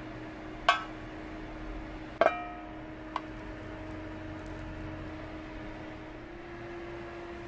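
Rice paddle knocking against enamelware while cooked brown rice is scooped into a container: three sharp clinks, the second loudest with a short ringing tone.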